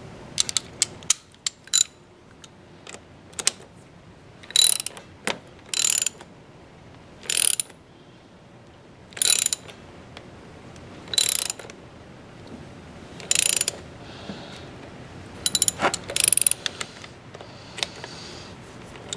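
Socket-wrench ratchet clicking in short bursts, about one every one and a half to two seconds, as it is swung back and forth turning the pressing bolt of a chain rivet tool to flare the rivets of a motorcycle chain's master link. A few separate sharp clicks come just before the first burst.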